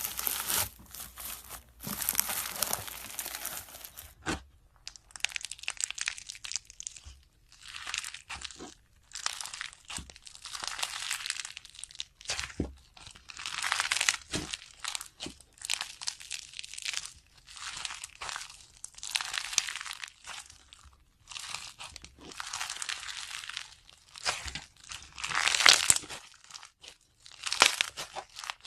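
Slime being squeezed, poked and stretched by hand, giving crackly, crunchy noise in irregular bursts of a second or two, with a few sharp pops.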